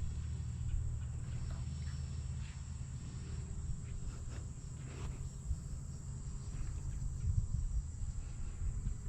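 Wind rumbling on the microphone outdoors, a steady low noise with a few faint light rustles and ticks.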